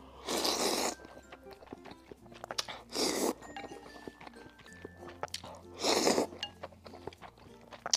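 A person slurping noodles in three long sucks about three seconds apart, with soft chewing in between.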